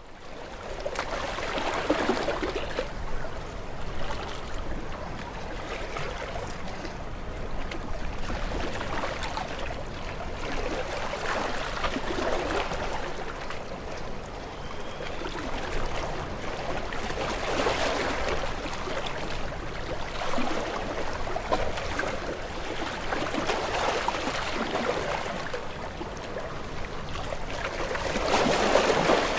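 Sea waves washing onto a shore: a continuous rush of water that surges every several seconds, with the loudest surge near the end.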